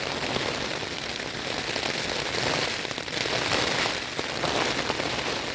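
Steady rain pattering on the fabric of an OEX Phoxx 2 V2 tent, heard from inside the tent.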